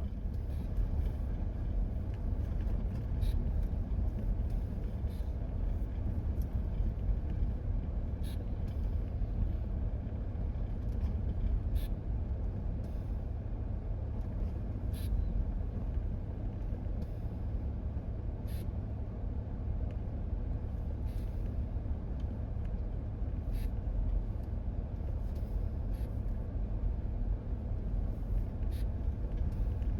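A vehicle driving along a road, heard from inside the cabin: a steady low rumble of engine and road noise, with scattered sharp ticks every second or two.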